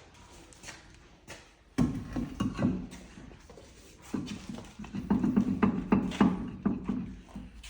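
A wrench being worked on a brake bolt as it is torqued up: sharp metal clicks, with a man grunting and straining under the effort.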